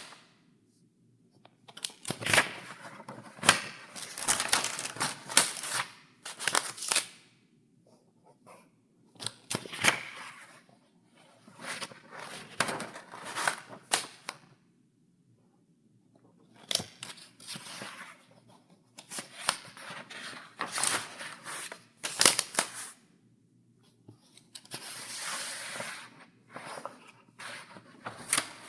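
Paper pages in a ring-binder file being turned one after another, each turn a crisp rustle with sharp snaps of the sheets, separated by short pauses.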